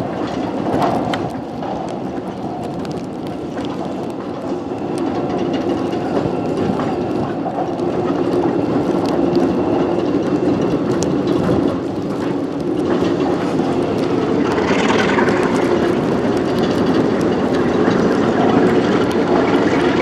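A cut of empty tank cars rolls past at low speed, their wheels clicking and clunking over the rail joints. They are shoved by a high-hood Alco RS11 diesel switcher, whose V12 engine running steadily grows louder toward the end as the locomotive draws near.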